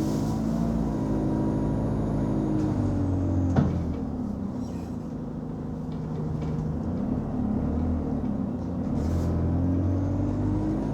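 Interior of an Alexander Dennis Enviro 200 Dart single-decker bus on the move: the diesel engine's drone falls away about four seconds in and climbs again a few seconds later. A single sharp bang sounds about three and a half seconds in.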